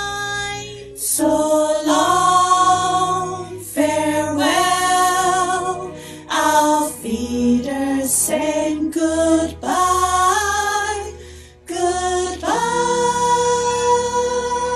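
Singing with musical accompaniment: a run of short sung phrases, then a long held note from about twelve and a half seconds in.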